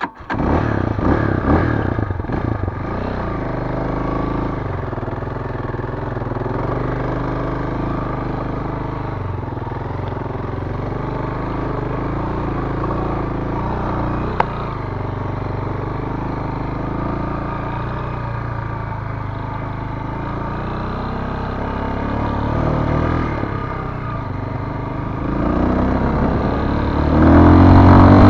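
ZiD 250 motorcycle's single-cylinder four-stroke engine running under way at speed, its pitch wavering up and down with the throttle. It gets louder about 25 seconds in and again just before the end as it revs harder.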